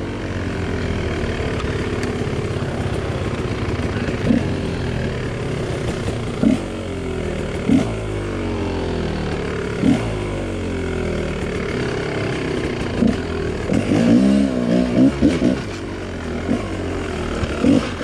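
2018 Gas Gas 250XC two-stroke dirt bike engine running, its pitch rising and falling with the throttle, with short sharp peaks every couple of seconds and a quick series of revs near the end.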